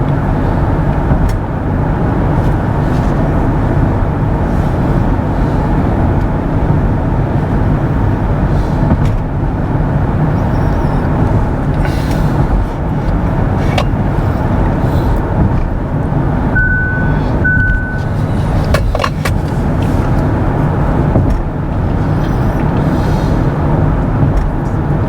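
Steady road and tyre noise inside the cabin of a moving Kia EV6, with no engine note. About two-thirds of the way through, two short high beeps sound about a second apart, followed by a few clicks.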